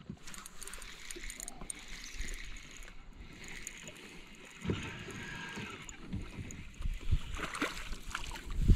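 Spinning reel being cranked to bring in a hooked crappie, with a low rumble joining about halfway through. Splashes come near the end as the fish reaches the surface.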